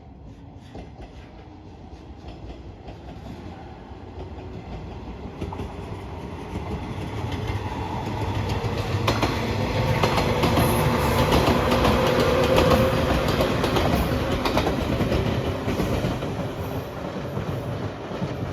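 Electric train approaching and passing, its wheels clacking over the rail joints. It grows louder, is loudest a little past halfway, then fades as it moves away.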